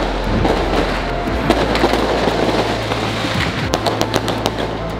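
Dense, rapid crackling of beehive fireworks: swarms of bottle rockets and firecrackers going off. A run of sharper, louder cracks comes close together about four seconds in.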